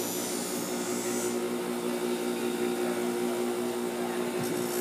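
Bench grinder motor running with a steady hum while a machete blade is ground against the wheel; the high grinding hiss is strongest for about the first second, then lighter.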